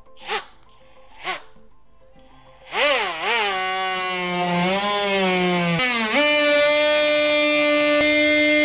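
Two short knocks, then a power drill spins up: its motor whine wavers in pitch for a few seconds, then holds at a steady high speed while drilling through drywall.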